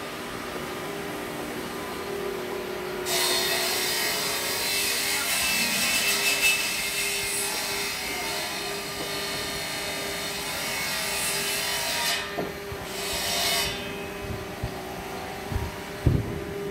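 A woodworking power tool running on wood under load for about nine seconds, stopping, then biting again for about a second. A steady machine hum runs underneath, and a couple of low knocks come near the end.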